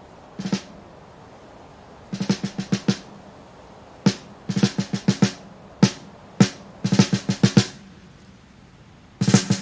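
Drum intro of a rock song: short snare-drum rolls and single hits in spaced-out bursts over a quiet background wash. About nine seconds in, the full band comes in.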